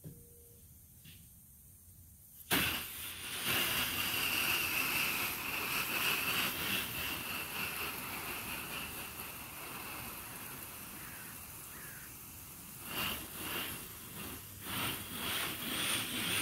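Garden hose spray nozzle turned on about two and a half seconds in: a steady hiss of water jetting onto the greenhouse's plastic wall panels, rising and falling in strength near the end as the spray is moved across them.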